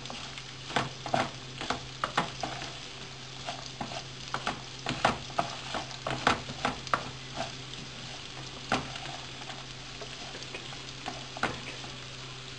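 Wooden spatula stirring and scraping rice with pine nuts and onion in a frying pan, sharp irregular scrapes and taps over the sizzle of the rice toasting in oil. The stirring thins out about nine seconds in, leaving mostly the sizzle.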